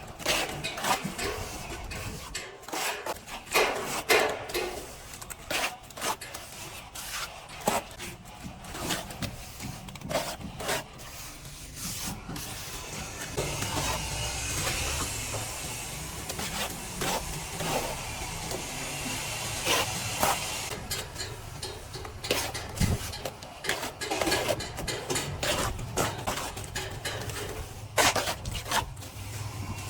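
Plastering trowel scraping and rubbing over a wall in short, irregular strokes, with a longer, steadier stretch of smoothing about halfway through.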